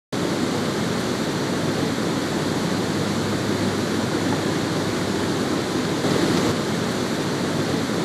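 Water rushing over a low dam's spillway and churning in the river below it: a steady, unbroken rushing noise that cuts in suddenly right at the start.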